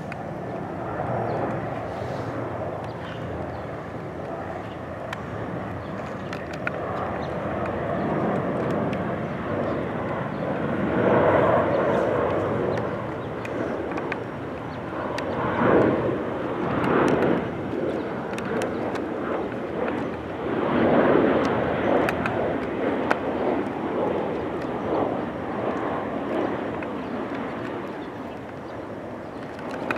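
Airliner engine noise: a steady rush that swells louder several times and eases off again.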